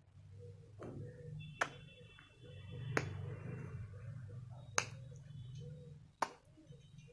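Five sharp clicks, roughly a second apart, over a faint low hum.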